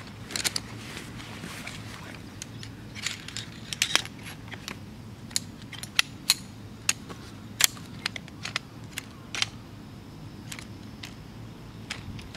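Folding camp chair being unpacked and put together: the nylon storage bag rustling, then a run of sharp metallic clicks and taps as the frame poles are fitted into the hub, thinning out near the end.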